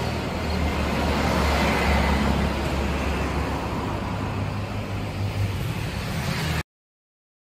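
Outdoor street ambience: steady road traffic rumble with a low drone. It cuts off abruptly to silence near the end.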